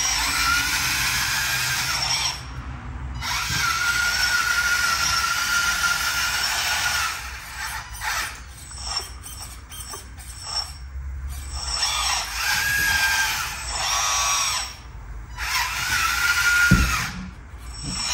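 Lesu RC HAMM smooth drum roller's small electric motors and gearing whining as it drives and turns, starting and stopping in stretches of one to a few seconds. A single knock near the end.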